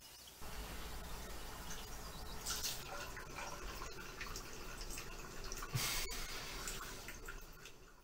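Bathroom tap running into a sink, starting suddenly about half a second in, with louder splashes of water about two and a half seconds in and again near six seconds.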